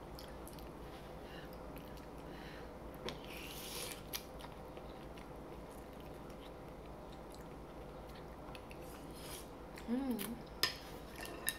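Close-up eating sounds, faint: noodles being slurped and chewed, with small clicks of chopsticks and a plastic soup spoon. A brief hiss-like slurp about three seconds in and another near the end, followed by a short vocal sound.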